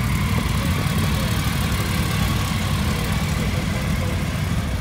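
Motorcycle engine idling with a steady low rumble, with people talking in the background.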